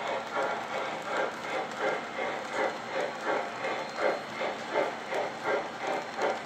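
O scale model train of boxcars rolling past on the track with a steady rhythmic clatter, about three beats a second.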